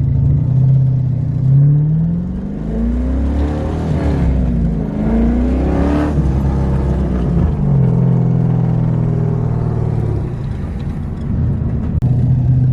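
Car engine heard from inside the cabin while driving. It revs up about a second and a half in, its pitch climbing, dipping and climbing again to about six seconds, then drops back and runs steadily.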